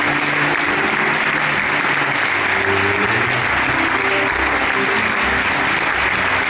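A large seated audience applauding steadily, with the band still playing held low notes underneath.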